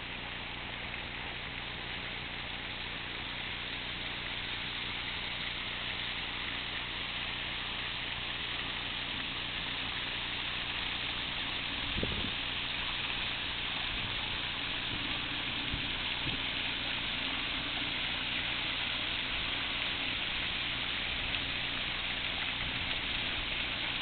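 Force Gill waterfall: water falling down a rock face and splashing into its pool, a steady rushing hiss that grows slowly louder, with one brief knock about halfway through.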